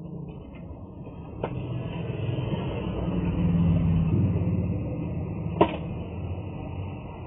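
A steady low vehicle rumble heard inside a cargo truck's box, swelling toward the middle, with two sharp knocks, one about a second and a half in and a louder one near the end.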